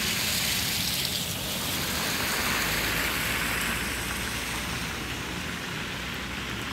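Car tyres hissing through slush on a wet road as cars drive past, the hiss easing toward the end.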